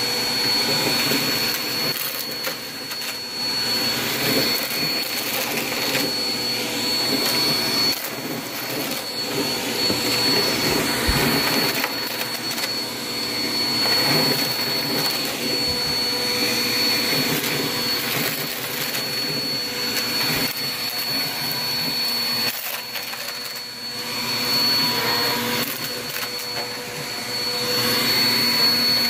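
Upright bagless vacuum cleaner running steadily with a high whine, pushed back and forth over a rug, with a crackle of confetti and glitter being sucked up. The sound swells and dips a little with each pass.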